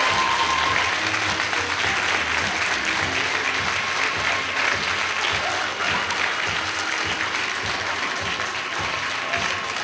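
Sustained applause from a theatre audience and the cast clapping along on stage.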